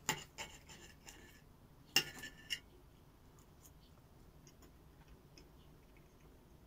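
Knife and fork clicking and scraping against a ceramic plate while a grilled sausage is cut, with one sharp clink about two seconds in that rings briefly. After that only faint scattered ticks.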